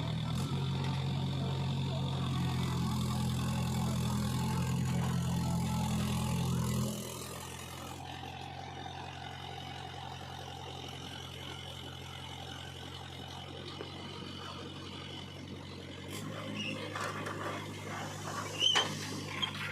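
Heavy diesel engine of an earthmoving machine running steadily, loud for about the first seven seconds, then dropping to a quieter, even level. A few sharp clicks near the end.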